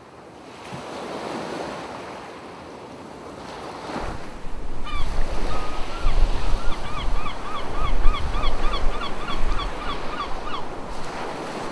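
Ocean surf washing in, with wind buffeting the microphone. From about five seconds in, a bird gives a long run of short calls repeated about three times a second, which stops shortly before the end.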